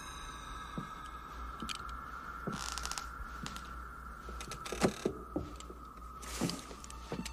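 Tense film underscore: a held high drone that slowly sinks in pitch. Under it are scattered soft clicks and knocks, the sharpest about five seconds in, and two brief hissing swells.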